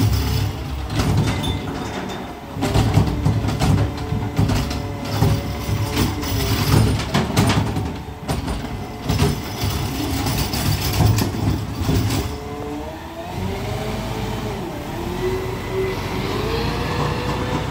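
Peterbilt 520 McNeilus ZR garbage truck's automated arm lifting a trash cart and dumping it into the hopper: repeated clanks and bangs over the running engine and hydraulics, then a wavering whine that rises over the last few seconds.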